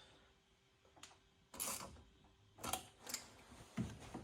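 Faint, scattered clicks and knocks of a hand tool working a hose clamp on turbo boost piping, about five over a few seconds.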